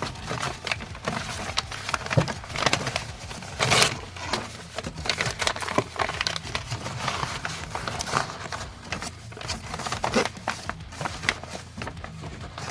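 Packing material being handled, crinkling and rustling with many irregular crackles and clicks and a louder crunch about four seconds in.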